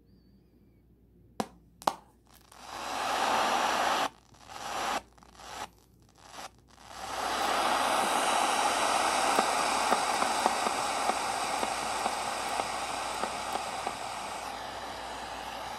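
Static hiss from the loudspeaker of an ATS-20 shortwave radio. After two clicks about a second and a half in, the hiss cuts in and out a few times while the radio is worked, then runs steadily.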